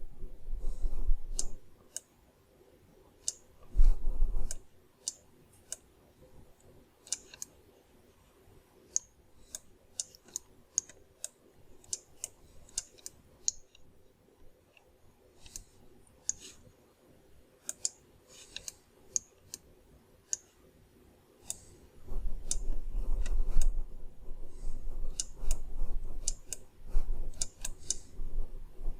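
Irregular clicking of a computer mouse and keyboard during sculpting work at a computer, with a low rumble, as from the desk or microphone being bumped, coming and going, longest near the end.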